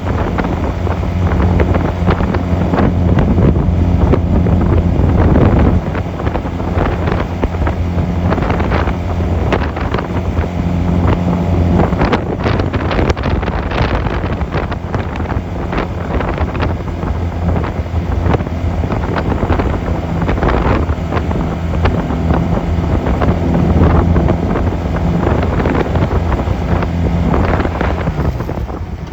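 Honda 250cc motorcycle engine running while riding, with wind buffeting the microphone. The engine note drops noticeably about six seconds in, then rises and falls with throttle.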